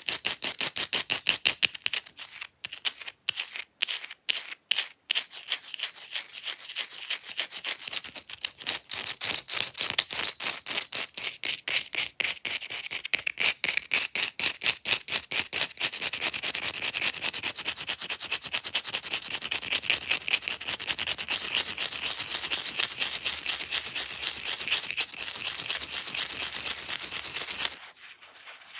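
Long acrylic fake nails scratching an object fast, several strokes a second. The strokes come a few at a time with short gaps near the start, then run together into dense, continuous scratching that grows louder about halfway through and stops just before the end.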